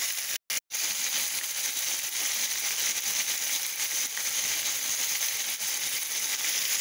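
Seasoned boneless chicken thighs sizzling and crackling in hot oil in a crowded skillet, a steady frying hiss that cuts out twice very briefly about half a second in.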